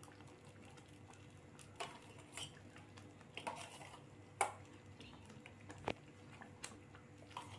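Steel spoon and ladle clinking lightly against a cooking pan while dry fruits are spooned into thick kheer. A handful of faint, scattered taps, the sharpest about four and a half seconds in.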